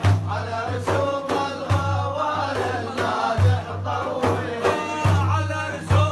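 Devotional Arabic praise song (madih) sung by a male singer, carried by a deep drum beat that strikes about once a second.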